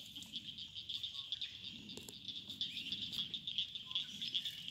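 Insects chirring in a steady, high, rapidly pulsing trill, with a few faint clicks.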